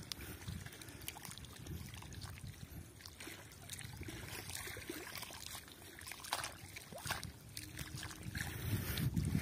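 Small waves lapping and sloshing at the reservoir's edge, an uneven low rumble with a few faint ticks.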